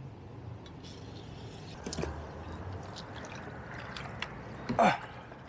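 Small carp splashing at the surface as it is reeled to the side of the boat, with light clicks from the tackle and one louder splash near the end.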